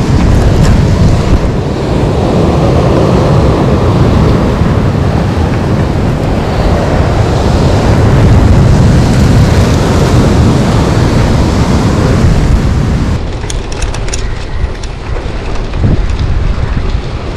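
Wind buffeting the microphone on a moving bicycle: a loud, steady rumble with no distinct tones. It eases in the last few seconds, where a few faint clicks come through.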